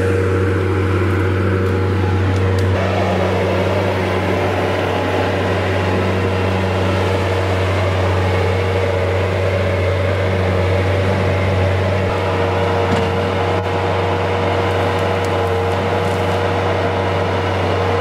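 Bobcat 773 skid-steer loader's diesel engine running steadily at working revs as the machine drives and pushes brush. A broader machine noise builds over the engine about three seconds in.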